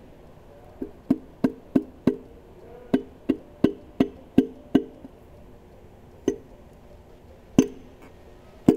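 Hammer tapping on loosened connecting-rod bolts of a Hellephant V8 to knock the rod caps free, each tap a sharp knock with a short ring. There are two runs of about three taps a second, then a few spaced taps near the end.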